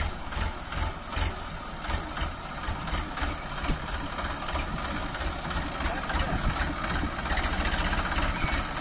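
Massey Ferguson 50 hp tractor's diesel engine running with a rapid low chugging. It grows louder about seven seconds in as the tractor drives closer.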